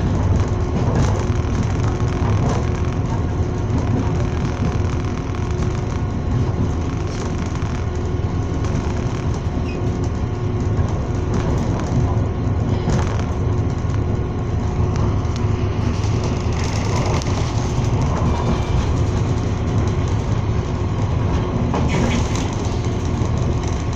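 Passenger train running at speed, heard from inside the carriage: a steady low rumble of wheels on rail with a constant hum through it and a few scattered clacks.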